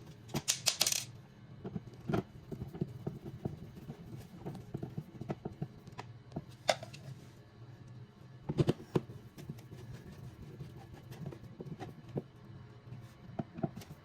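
Wall outlet cover plate being handled and fitted over a USB charging receptacle: scattered clicks and taps, a quick run of them about half a second in and another about nine seconds in.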